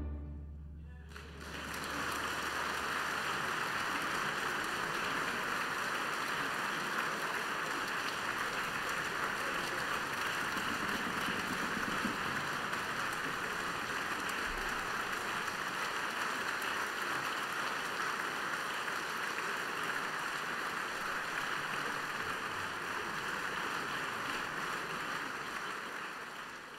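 The orchestra's final chord dies away, and about a second and a half in an audience breaks into steady applause, which fades out near the end.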